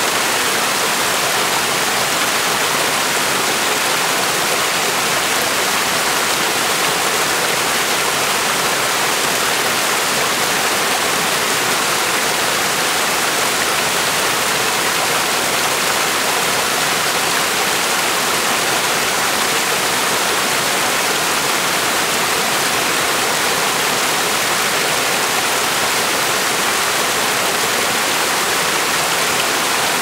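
Small mountain-stream waterfall, water falling in two strands over rocks and splashing into a shallow pool: a steady, even rushing that does not change.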